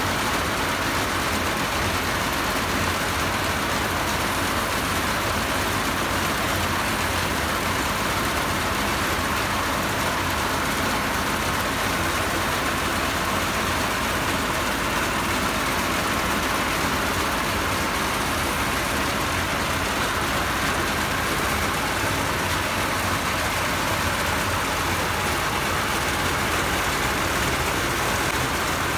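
Tân Việt rice threshing machine running steadily while rice stalks are fed into its threshing drum, a constant mechanical din with a low engine hum underneath.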